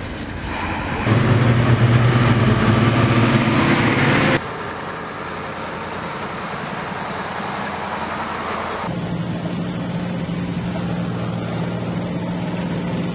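Engines of military trucks and tracked armoured vehicles running as a column drives past. The sound is cut together from several takes, changing abruptly about one, four and nine seconds in, and is loudest between one and four seconds.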